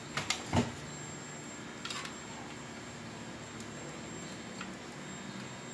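A few short clicks and knocks of hands handling motorcycle horn wiring and terminal connectors, the loudest in the first second and a smaller cluster about two seconds in, over a faint steady background hum.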